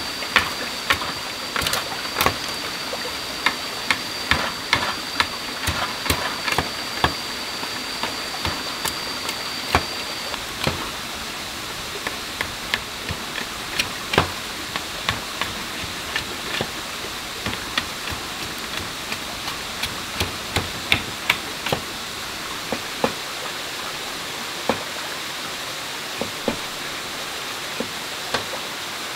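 Knife cutting and shaving a bamboo pole: irregular sharp cuts, one or two a second, over the steady rush of a nearby stream.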